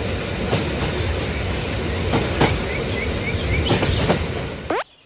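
Train running on the rails: a steady rumble with sharp clacks of the wheels over rail joints and a few brief squeaks, cutting off suddenly with a quick falling swoosh near the end.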